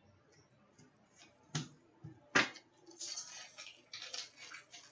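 Two sharp clicks of cards set down on a glass table, then the crackly crinkling of a foil trading-card pack being handled and opened.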